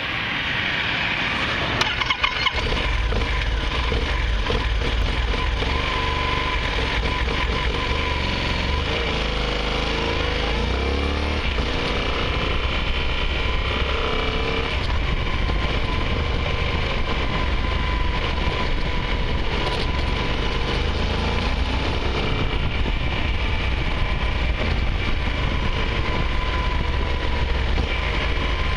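Motorcycle running while ridden through traffic, its engine note rising and falling through the middle as the rider works the throttle, over a heavy, continuous low rumble of wind and road noise. A few sharp knocks about two seconds in.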